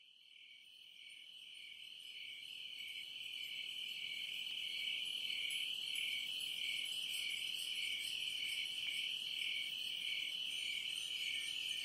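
A steady high chirring trill like crickets, pulsing slightly about once a second, fading in over the first few seconds.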